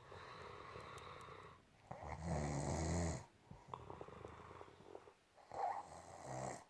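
A woman snoring in her sleep: a long breath drawn in, then a loud snore about two seconds in, followed by shorter, quieter snores near the end.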